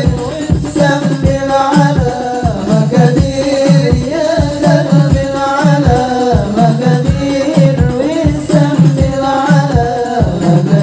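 Hadroh ensemble: several male voices singing an Arabic sholawat together in long, melismatic lines over rebana frame drums beating a steady rhythm.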